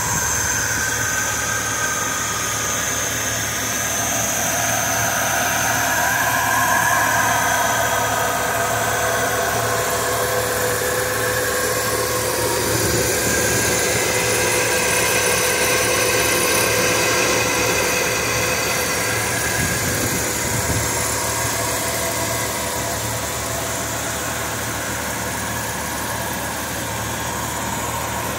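Cadillac Series 62 V8 engine idling steadily under the open hood.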